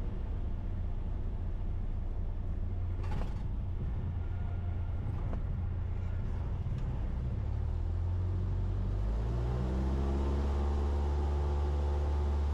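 A Cessna 172's piston engine and propeller droning steadily in flight, heard from inside the cabin. There is a brief click about three seconds in. In the last few seconds the drone takes on a clearer, steady pitched hum.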